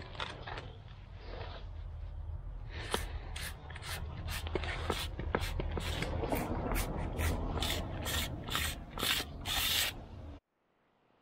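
Metal barrel of a cordless grease gun being unscrewed by hand: the threads rasp in a run of short scrapes, about three a second, with handling clicks and rubbing as the spent grease cartridge is taken out. The sound cuts off suddenly near the end.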